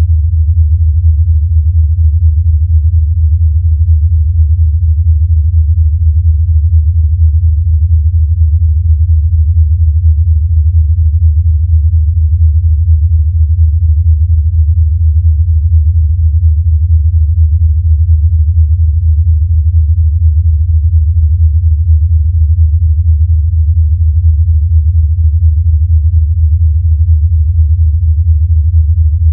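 Sonified black hole XTE J1650-500: a steady, low hum that flutters rapidly in level.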